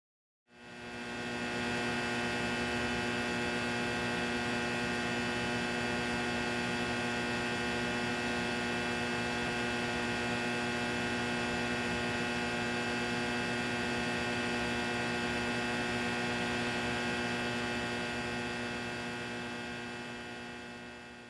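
Sustained electronic drone of many held tones with no beat, fading in over the first couple of seconds and fading out near the end.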